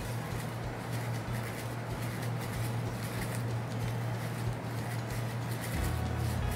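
Sponge paint roller being rolled back and forth through wet paint over a foam-board printing plate, a faint crackling, over a steady low hum.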